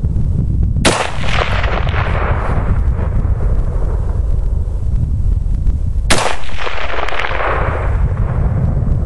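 Two rifle shots from a Tokarev SVT-40 semi-automatic rifle firing 7.62x54R, about five seconds apart, each followed by an echo that rolls off over about two seconds. Steady wind rumble on the microphone runs underneath.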